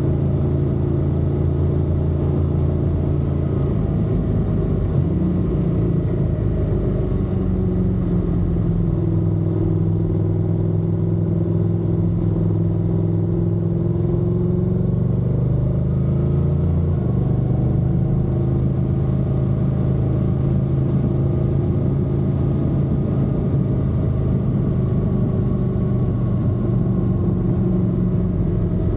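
Honda NC750X's parallel-twin engine running steadily under way. Its pitch shifts a few times, stepping up about five seconds in and dropping about seventeen seconds in.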